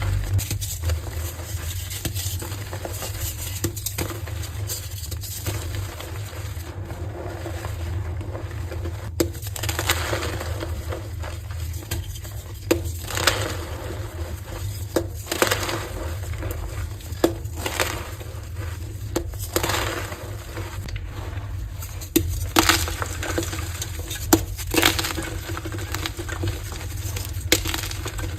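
Pressed gym chalk blocks being broken and crushed by hand, crunching and cracking in irregular strokes every second or two, over a steady low hum.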